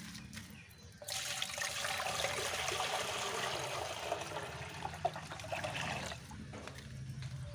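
Water poured from a container into an empty glass aquarium, gushing and splashing as it fills the bottom. The pour starts suddenly about a second in and eases off near the end.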